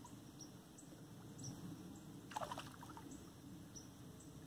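A hooked perch splashing briefly at the pond's surface about halfway through as it is reeled in, over faint evening ambience with short high chirps repeating in the background.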